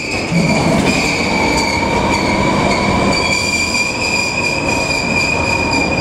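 JNR 381 series limited express electric train pulling out of the platform, its wheels giving a steady high-pitched squeal over the rumble of the moving cars.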